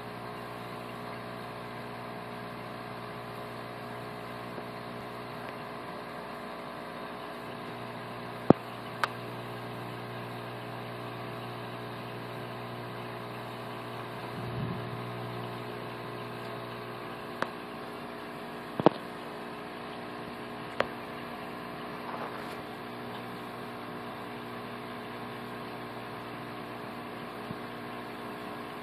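Steady mechanical hum made of several fixed tones, broken by a handful of sharp clicks, the loudest about a third of the way in and again about two-thirds in, with a brief low rumble near the middle.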